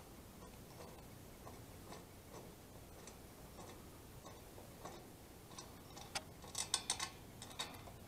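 Faint metallic ticking as a mounting bolt is turned out by hand from the base of a Hy-Gain antenna rotor. A quick run of sharper clicks comes near the end as the bolt and washer work loose.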